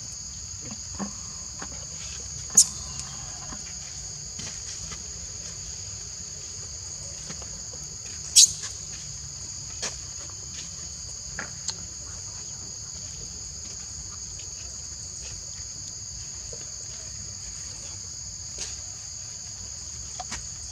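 Steady, high-pitched drone of a forest insect chorus, with two loud sharp clicks, about two and a half seconds in and again about eight seconds in.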